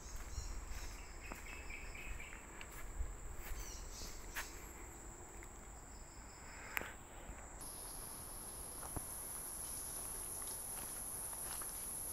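Forest insects trilling in a steady high-pitched buzz, which shifts a little past halfway to a higher, louder one. Soft footsteps scuff along a leaf-strewn dirt trail.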